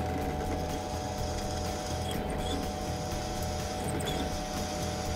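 Benchtop drill press running steadily, a steady hum with a constant whine, as its 7 mm metal drill bit is fed into a metal plate.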